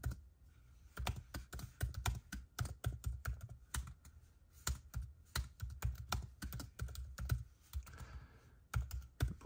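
Typing on a MacBook Air's built-in laptop keyboard: a quick, uneven run of key clicks, with brief pauses just after the start and near the end.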